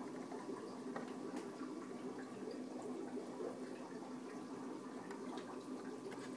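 Aquarium water bubbling and trickling steadily, with small pops and drips scattered through it.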